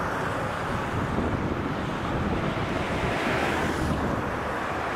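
Light wind buffeting the microphone: a steady rushing noise with an uneven low rumble.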